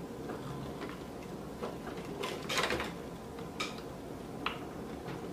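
Light clicks, taps and scrapes of the hot water boiler's plastic water-level tube and screen being pushed and fitted into place by hand, with a few sharper clicks in the middle.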